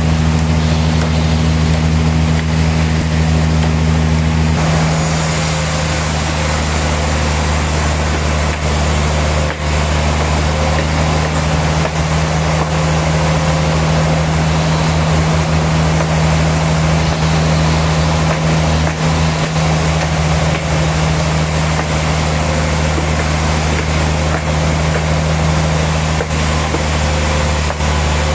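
Heavy machinery running steadily with a loud, continuous drone and hum. The sound shifts abruptly about four and a half seconds in.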